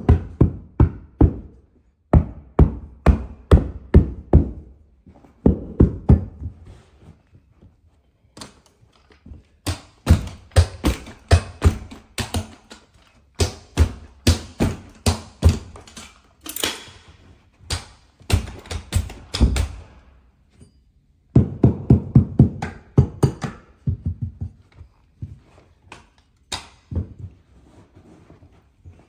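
A hammer striking a carpet stair tool again and again, tucking stair carpet in against the steps. The blows come in quick runs of several a second, with short pauses between runs.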